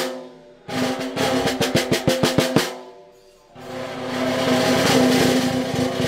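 Snare drum with a goatskin batter head played with sticks: a run of quick single strokes, a short pause, then a roll that swells louder and holds.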